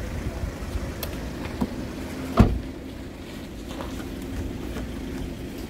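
Hands working a hard-shell rooftop tent, pushing its folded fabric into the shell. There are a few light knocks and one sharp thump about two and a half seconds in, over a low steady rumble.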